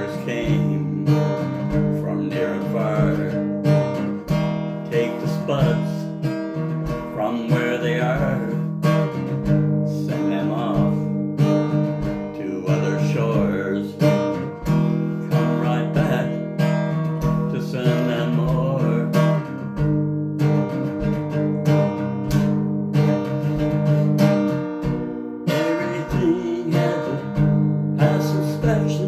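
Acoustic guitar strummed steadily in an instrumental passage of a folk song.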